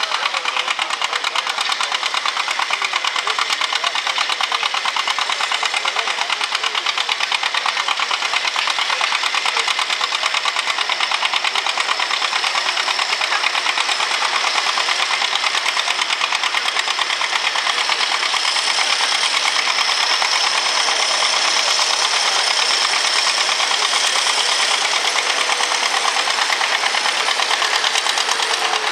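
Farm tractor engine running hard under load while pulling the sled, its exhaust firing in a fast, even beat.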